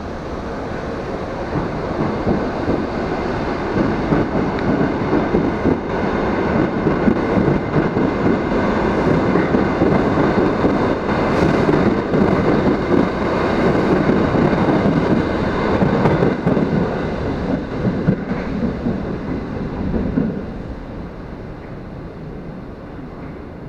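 Bucharest Metro train pulling out of the platform and running past, a dense rumble of wheels on rail that builds over the first few seconds and falls away about twenty seconds in as the last car clears.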